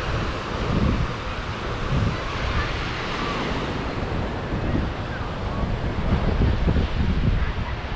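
Sea surf washing onto the shore in a steady rush, with wind buffeting the microphone in irregular low gusts.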